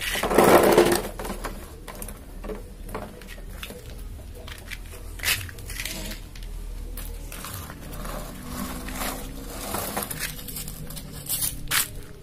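Plastic toy vehicles being pushed and handled on gritty ground and a cardboard ramp: scraping, rattling and scattered clicks and knocks, with a louder scuffing burst near the start.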